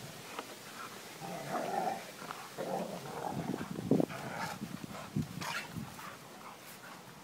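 Rottweilers play-fighting: growls and scuffling come in irregular bursts, with a few sharp knocks, the loudest about four seconds in.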